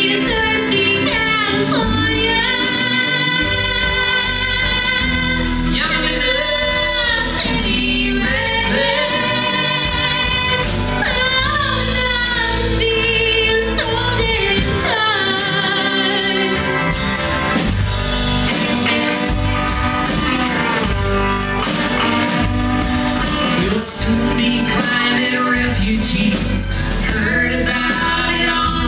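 Live band music at a steady level: acoustic guitar, upright bass, mandolin and drums, with singing and melodic lines that bend and slide.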